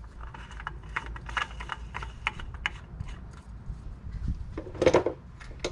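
A new spin-on oil filter being threaded onto the engine block by hand: a run of small irregular clicks and taps, with a louder scrape about five seconds in.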